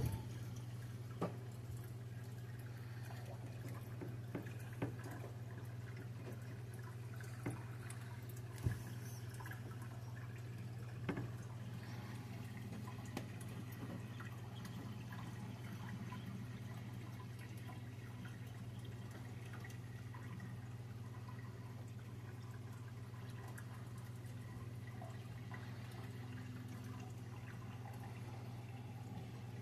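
Steady low hum and trickling water of a running aquarium filter, with a few brief splashes and knocks at the water surface in the first dozen seconds.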